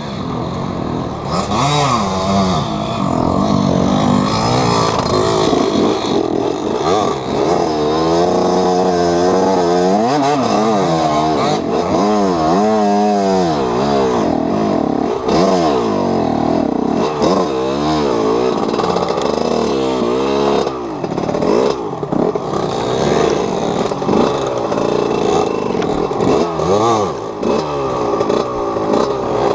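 Enduro dirt bike engine revving up and down over and over, its pitch rising and falling every second or two as the throttle is worked, with some clatter from the bike.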